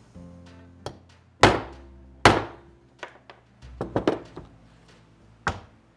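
Hammer blows driving a heated bearing into its bore in a Triumph 650 engine case. There are two hard strikes about a second and a half and two and a quarter seconds in, a quick cluster of lighter taps around four seconds, and one more sharp strike near the end. The bearing is being tapped in and straightened because it keeps going in crooked.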